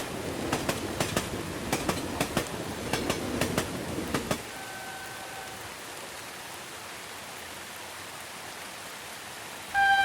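A train running on rails, a low rumble with rapid irregular clacking from the wheels over rail joints, cuts off abruptly about four seconds in, leaving steady rain. A faint short horn tone sounds about a second later, and a loud steady horn blast begins just before the end.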